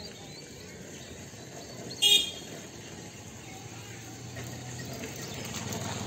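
Outdoor background noise with a steady low hum, broken about two seconds in by one short, loud, high-pitched toot.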